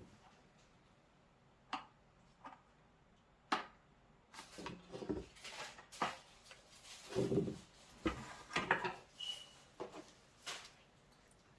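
Scattered light knocks, clicks and rustles of parts being handled, busiest and loudest about seven to nine seconds in, with a brief squeak near the nine-second mark.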